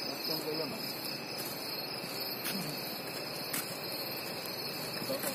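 Night insects, such as crickets, chirring in a steady, continuous high-pitched drone.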